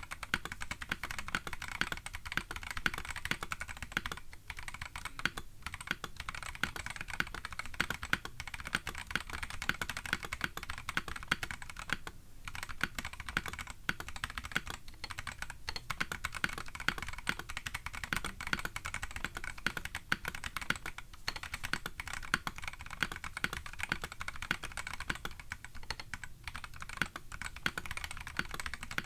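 Continuous fast typing on a KBD8X MKII mechanical keyboard with a polycarbonate case and brass plate, lubed Gazzew Boba U4T tactile switches and MDA plastic keycaps, with a few brief pauses between bursts of keystrokes.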